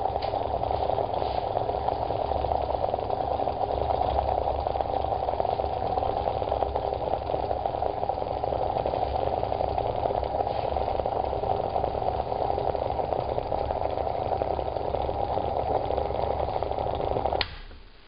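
Plasma discharge at the electrode of Parkhomov's 'Woodpecker' electrolytic cell, crackling and buzzing steadily in the water over a low hum. It cuts off suddenly with a click near the end as the discharge goes out.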